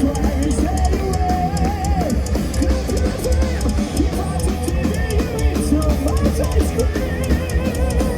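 Heavy metal band playing live at full volume: a pounding drum kit with bass drum under electric guitars, and a wavering lead line over the top.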